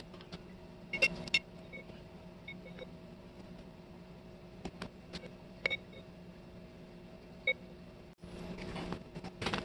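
A steel putty knife clinking lightly against a glass jar a few times, with short ringing pings, over a steady low hum. A soft hiss comes near the end.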